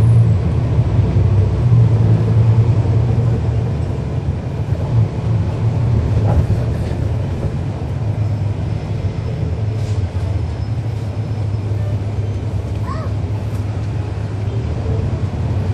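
Cummins ISL9 straight-six diesel of a 2012 NABI 40-foot transit bus, heard from on board, running with a steady low drone.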